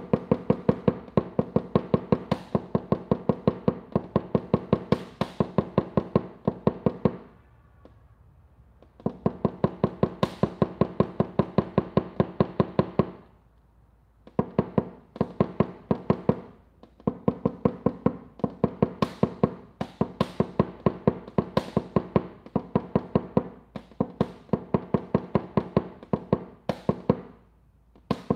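Rapid, even hammer taps on a car's sheet-metal quarter panel, about four or five a second in runs of several seconds with short pauses, the panel ringing under the blows: paintless dent repair tapping down and blending out a high spot (pinch) left by glue pulling.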